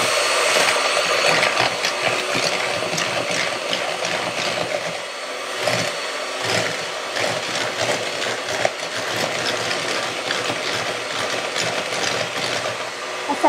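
Bosch electric hand mixer running steadily, its twin wire beaters whisking eggs and sugar into a pale froth, with frequent light clicks throughout.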